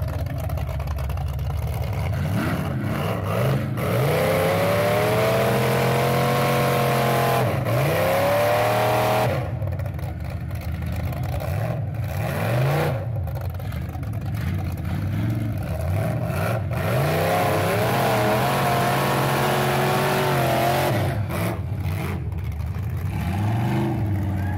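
Off-road truck engines revving hard under load during a strap recovery from a mud hole, the pitch climbing and wavering in long surges, one about four seconds in and another past the middle, with lower revving between.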